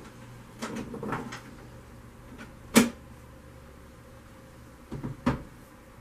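Dishwasher door being shut and a plastic detergent bottle set down on a wooden counter: a cluster of clunks, one sharp loud clack about three seconds in, then a couple more knocks near the end.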